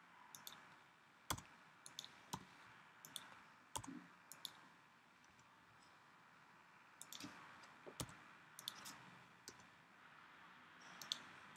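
Faint, scattered clicks of a computer mouse and keyboard keys, some single and some in quick pairs, as shapes are selected and colours are sampled with an eyedropper tool. Longer gaps between them in the middle.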